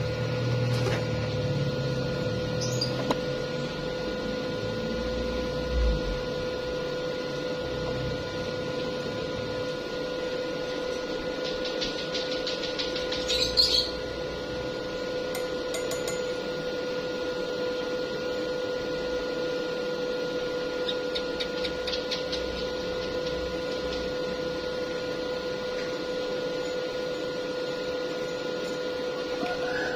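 A steady machine hum, one constant mid-pitched tone over a light hiss, broken by a few knocks and two short stretches of rapid clicking.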